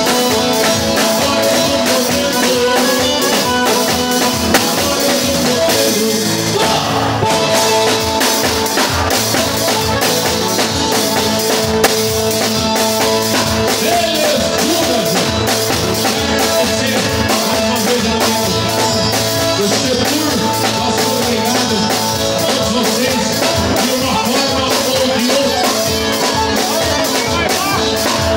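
Live band music: a percussion kit with cymbals keeps a steady beat under an acoustic guitar, heard close to the percussionist.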